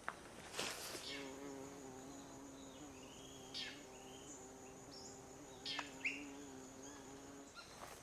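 Flying insect buzzing steadily close by with an even hum, from about a second in until near the end. A few short falling bird calls and a faint high steady whine sound over it.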